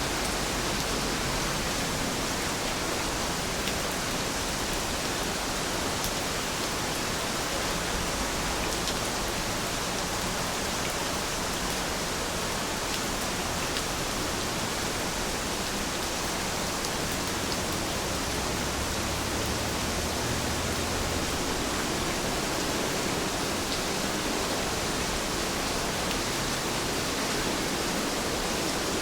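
Steady rain falling, an even hiss with a few faint drop ticks now and then.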